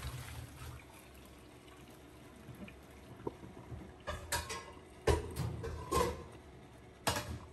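Hot water from a pan of boiled cauliflower pouring out into a stainless-steel colander in a steel sink, dying away within the first second, as the florets are drained. Several sharp knocks and clatters follow, about four to seven seconds in.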